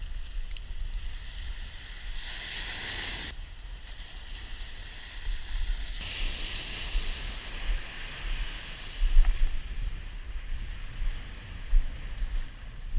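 Wind rumbling on the microphone over ocean surf, with two swells of hissing wash as waves break and run up the beach, the second longer.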